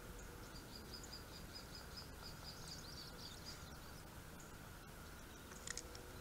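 Quiet outdoor ambience with a bird singing a quick run of high, evenly repeated chirps, about five a second, for two or three seconds. A few faint clicks come near the end.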